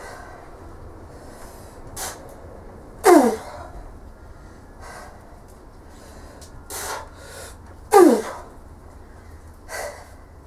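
A woman's forceful breathing while straining to bend a steel bolt by hand: short sharp exhales every couple of seconds, with two loud strained grunts that fall in pitch, about three seconds in and about eight seconds in.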